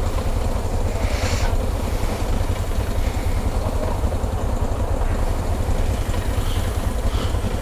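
Honda XR 250 Tornado's single-cylinder four-stroke engine idling steadily in stopped traffic, with a brief hiss about a second in.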